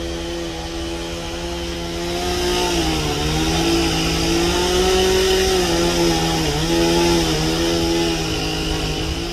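Two-stroke chainsaw running at high revs while cutting through a fallen tree, its pitch sagging and recovering several times as the chain bites into the wood.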